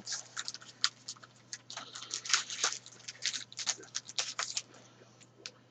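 Trading-card pack wrappers and packaging being handled, with irregular crinkling and rustling as the box is unpacked.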